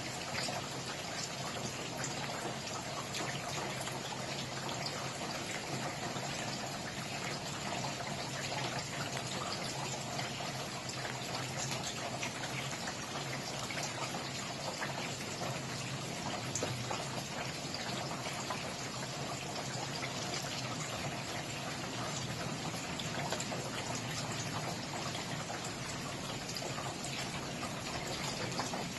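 Steady rain falling, an even hiss with many small drop impacts ticking through it.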